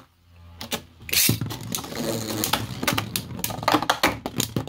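Beyblade spinning top clattering in a plastic stadium: a dense, irregular run of rapid clicks and scrapes that starts about a second in.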